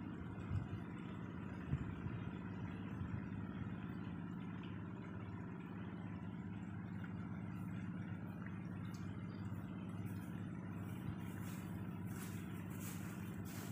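A motor running steadily at a low, even pitch throughout. Footsteps on the grass come in close near the end.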